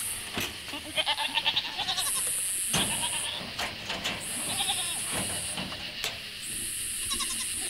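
Goats bleating now and then, with a few sharp knocks. Behind them, a high buzzing insect chorus switches on and off about every second.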